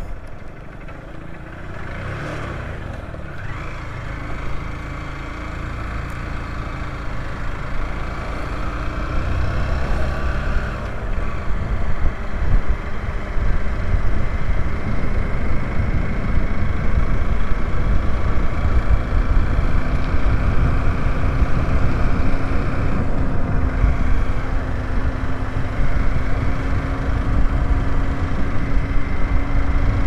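A motorcycle engine running on the move, with wind rushing over the microphone. It grows louder over the first dozen seconds as the bike picks up speed, and the engine note rises slowly in the second half.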